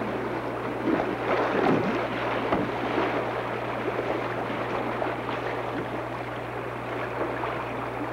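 A canoe running swift water: rushing, splashing river water with irregular splashes from the paddle.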